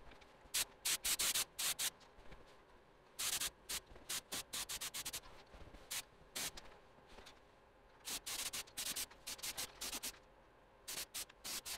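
Compressed-air gravity-feed spray gun spraying paint in short hissing bursts, each a fraction of a second, fired in quick clusters of several at a time with brief pauses between.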